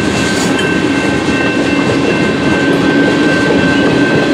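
Tank cars of a Canadian National mixed freight train rolling past: a steady, loud rumble and rattle of wheels on the rails, with a steady high-pitched tone running over it.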